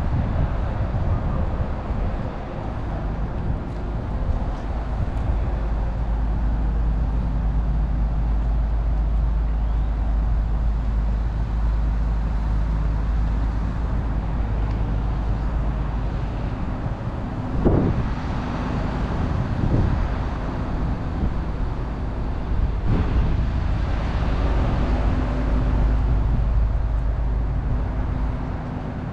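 Downtown street traffic: a steady low engine rumble with vehicles passing, including two short louder swells a little past halfway.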